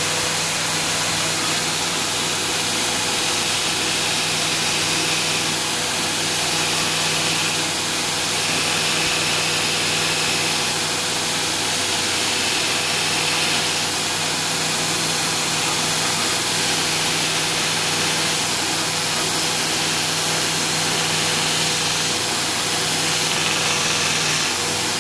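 2x72 belt grinder running with a forged steel knife blade pressed against the edge of the abrasive belt to cut in a choil. A steady grinding hiss sits over the steady hum of the motor and belt.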